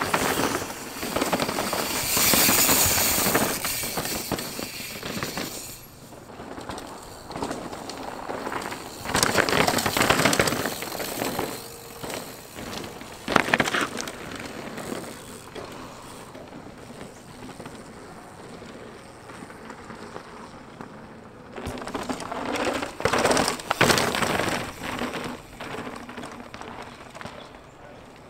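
Downhill mountain bikes passing on a rocky dirt track: tyres crunching and skidding over loose gravel, with sharp clacks and rattles from chain and frame, in several separate passes.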